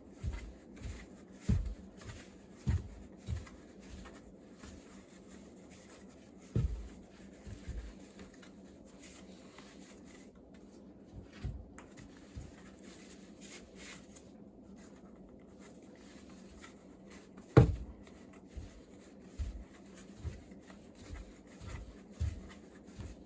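Irregular soft thumps and knocks from handling a cat scratching pole while jute twine is wound around it, with one sharper knock past the middle.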